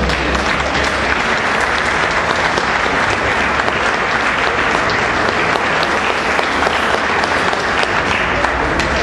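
A group of people applauding, steady unbroken clapping.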